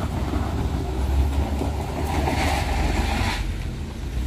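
SUV engine running under load as it climbs a loose dirt-and-gravel slope, a steady low rumble, with a louder rushing noise of tyres on gravel from about two seconds in, lasting about a second and a half.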